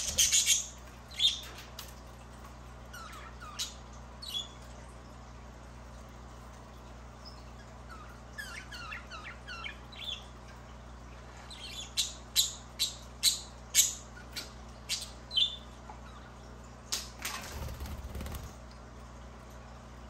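Budgerigar chirping: a string of short, sharp high calls, with a quicker run of softer warbling chatter in the middle and a brief rustle near the end.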